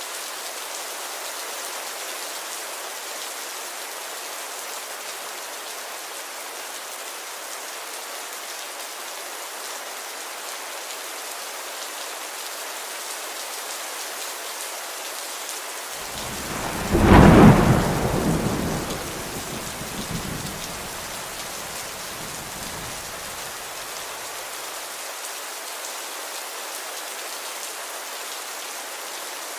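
Steady rain. A loud clap of thunder comes a little past halfway through and rumbles away over several seconds.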